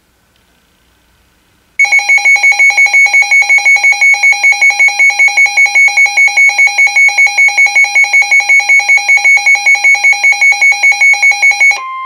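A NOAA weather radio's alert alarm going off for a Special Marine Warning: loud electronic beeping in two tones, pulsing about five times a second, starts about two seconds in and runs for about ten seconds, then switches to a steady single tone right at the end.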